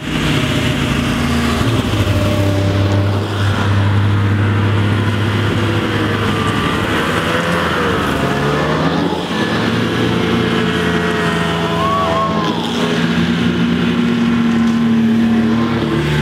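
Several Ski-Doo snowmobiles running as they ride along a trail one after another. The engine pitch rises and falls with the throttle.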